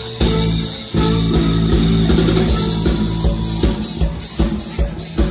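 Live Thai Isan band music played through a PA and heard from the crowd: electric guitar, keyboard and drum kit, with the drums keeping a steady beat.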